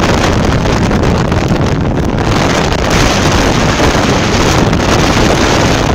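Wind buffeting the microphone of a moving vehicle, loud and gusty, over a steady low rumble of engine and tyres.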